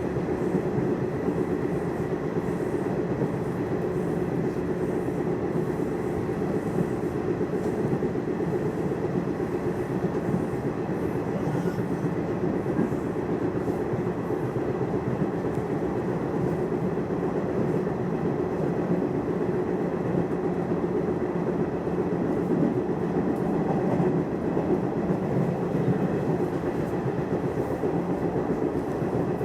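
Nishitetsu commuter train running between stations, heard inside the passenger car: a steady rumble of wheels on rail with a constant hum from the running gear.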